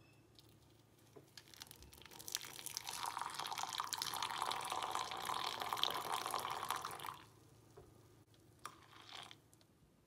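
Hot water poured from a kettle into a mug of instant coffee, a steady splashing stream that builds about two seconds in and stops about seven seconds in. A click and a short burst of noise follow near the end.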